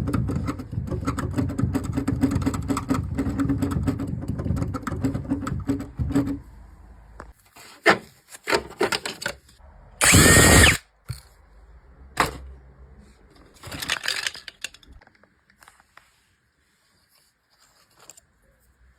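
An electric drill-driver runs steadily for about six seconds, then stops, typical of taking apart the case of a Yamaha P45 digital piano to fix its squeaking keys. Clicks and handling noises follow, with a short, loud hiss about ten seconds in and a softer one near fourteen seconds.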